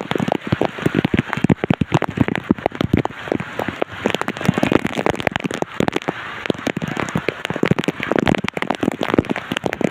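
Heavy rain pelting down: a dense, irregular patter of drops striking a hard surface close by.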